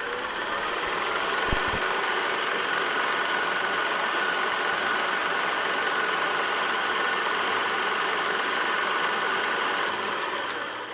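Film projector sound effect: a steady rapid mechanical clatter that fades in and fades out, with a low thump about a second and a half in.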